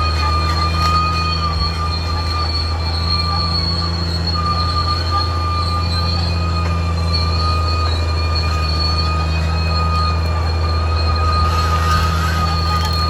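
Caterpillar D6R XL bulldozer's diesel engine running steadily, with a constant high-pitched squeal from the machine on top of the deep engine hum.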